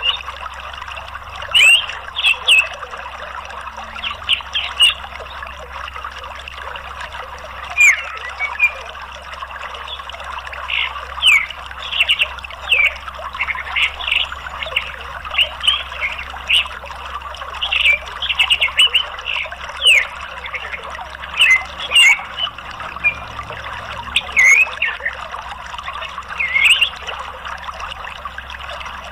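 Orange-headed thrush giving many quick, short chirps in clusters, over a steady sound of flowing water.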